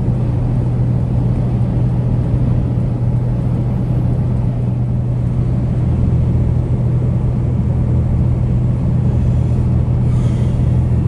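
A 2026 Kenworth T880 ready-mix truck cruising on the highway, heard from inside the cab: a steady low engine hum over road rumble.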